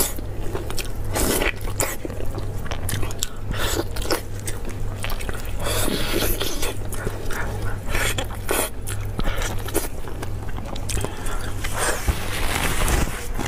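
Close-miked biting and chewing of saucy braised beef bone meat (niu wo gu), a run of irregular short wet clicks, over a steady low hum.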